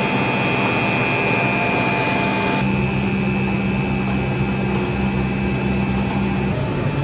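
ATE75 twin-screw extruder compounding and pelletizing line running: a steady machine hum with a few high, steady whines. The mix of the noise changes abruptly about two and a half seconds in, and a low part of the hum drops away near the end.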